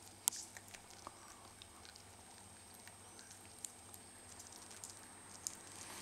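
Six-week-old cocker spaniel cross puppy moving about and playing: scattered light clicks and taps, the sharpest about a third of a second in and a few more spread through.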